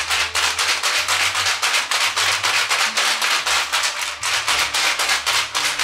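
Cocktail shaker being shaken hard by hand to mix a drink: a loud, fast, even rattle of about five or six strokes a second that keeps going without a break.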